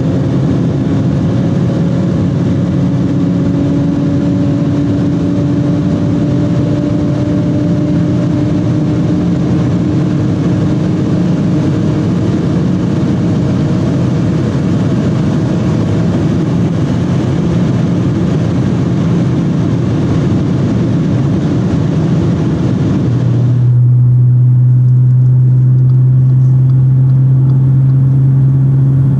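Audi S4's supercharged V6 with an X-pipe exhaust, heard from inside the cabin at very high autobahn speed: heavy wind and tyre noise over an engine note that rises slowly. About 23 seconds in, the wind and tyre noise drops away sharply, leaving a louder, steady, low exhaust drone.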